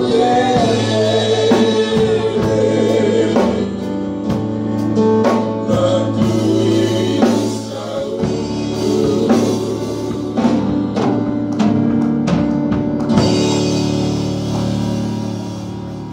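Live gospel worship music: a group of singers over keyboard and drum kit, getting quieter over the last few seconds as the song winds down.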